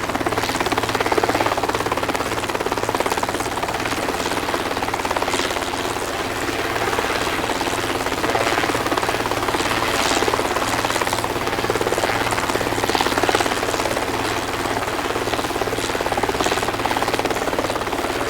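Helicopter hovering: a steady rotor and engine drone with a rhythmic beat that swells and fades gently every few seconds.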